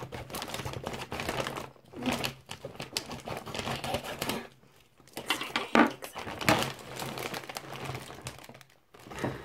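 Thin plastic bag crinkling and rustling as it is cut open with scissors and pulled apart, in irregular bouts with short pauses.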